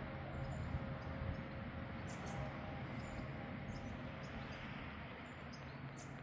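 Distant church bells ringing faintly, their lingering tones fading out about two-thirds of the way through, over a low distant hum, with a few short bird chirps.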